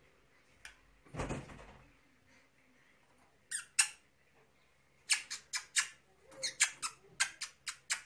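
Budgerigar giving sharp, high chirps: a couple around the middle, then a quick run of about three a second in the second half. A brief rustle about a second in.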